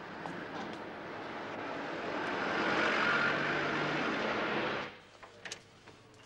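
Street traffic noise: a passing vehicle grows louder for a few seconds and cuts off suddenly about five seconds in. A few faint clicks follow.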